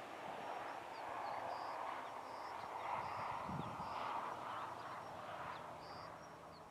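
Birds chirping in short, high calls over a steady rushing noise.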